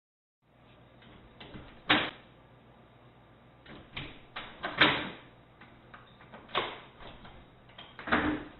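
A wooden glass-paned door knocking and rattling in its frame as a cat outside jumps up against it. There are about five sharp knocks spread a second or two apart, the loudest about five seconds in.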